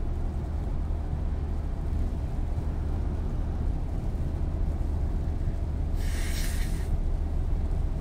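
Car cabin noise while driving on a wet highway in the rain: a steady low road rumble with tyre hiss. About six seconds in there is a brief, higher hiss lasting about a second.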